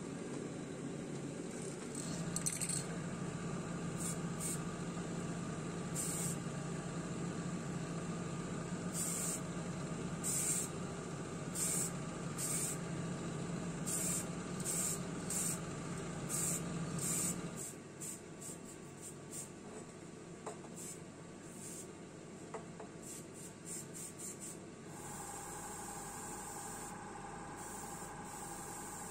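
Kitchen range hood extractor fan running while an aerosol spray paint can is sprayed at its filter in about a dozen short hisses. About two-thirds of the way through the fan's hum drops, and near the end a steady airbrush hiss starts over a steady hum.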